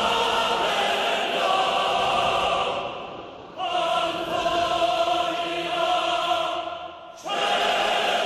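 Background music: a choir singing long held chords in three phrases of about three seconds each. Each phrase swells and fades, the second starting about three and a half seconds in and the third about a second before the end.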